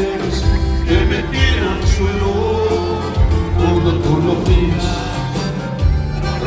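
Live norteño band playing: accordion melody over guitars, bass guitar and drums, a full, steady, loud band sound.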